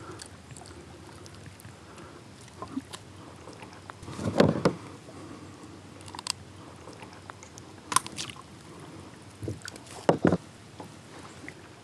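Scattered knocks, taps and clicks of handling in a plastic kayak as a smallmouth bass is unhooked from a landing net with pliers, with a few louder thumps about four seconds in and near the end, over a low steady hiss.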